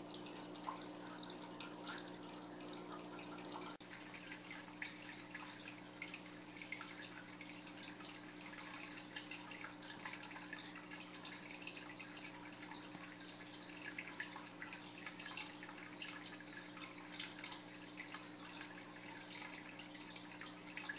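Aquarium water trickling and dripping in fine, irregular patters, over a steady low hum.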